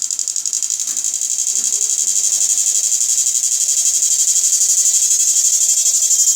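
Electric fish-shocking machine's IGBT inverter buzzing at a high pitch with a rapid, even pulse, growing steadily louder as its output volume is turned up.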